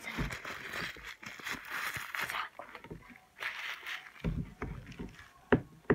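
Tissue rustling and rubbing close to the microphone as it is wiped over the face, with handling bumps and a sharp knock near the end.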